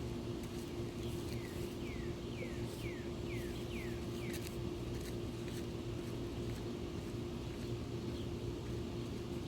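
A songbird singing a run of about eight quick downslurred whistles, roughly two a second, over a steady low hum and rumble, with scattered sharp clicks.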